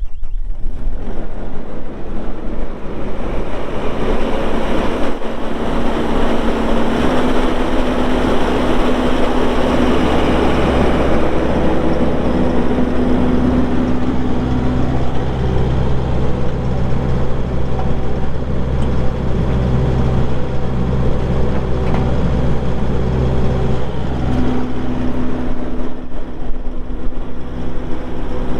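Kubota SVL75-2 compact track loader's four-cylinder diesel engine running steadily under the operator, with a higher whine that comes in and out and a deeper note that strengthens about halfway through as the machine is worked.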